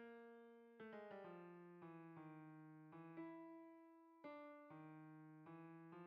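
Faint background music on a piano-like keyboard: single notes and chords struck one after another, each fading away before the next.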